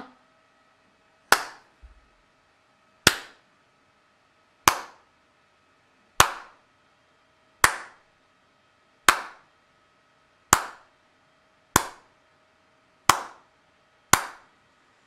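Single hand claps, about ten of them, one every second and a half or so, each a sharp crack with a short tail. They are claps to trigger a microphone clap switch, each one toggling an LED.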